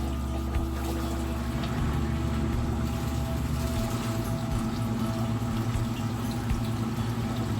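Frigidaire front-load washer's drain pump running steadily, humming as it pumps water out at a good rate: the pump-out works. The deepest part of the hum eases off about four seconds in.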